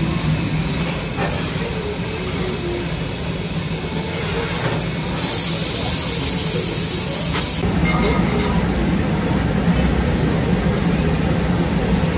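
Steady roar of a glass furnace and electric fans in a glassblowing workshop, with a loud hiss from about five seconds in that stops two and a half seconds later.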